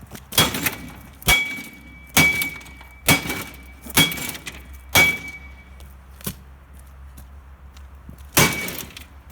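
Baseball bat smashing a microwave oven: about seven hard blows roughly a second apart, each a crash with a short metallic ring. After a pause there is one more blow near the end.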